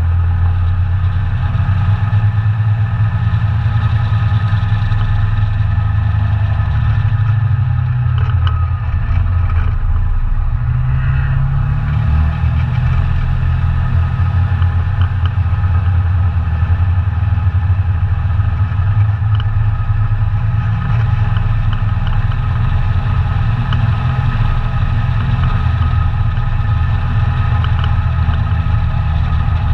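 ATV engine running steadily under way; its note drops for a few seconds in the middle and then picks up again.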